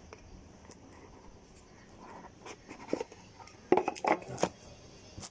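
Hands opening a cardboard earphone box and handling its paperboard tray: a few scrapes and taps, loudest in the second half.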